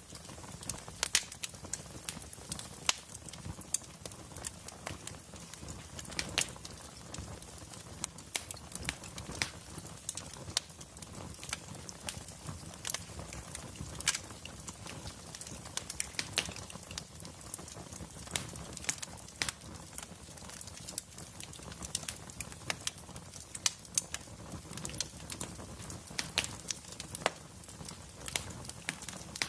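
Wood fire crackling in a fireplace: frequent sharp, irregular pops and snaps over a low steady rumble of burning logs.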